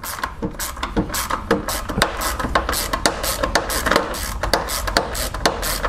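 Hand ratchet with a 10 mm socket clicking rapidly and unevenly, several clicks a second, as it backs out the screw that holds the radiator fan.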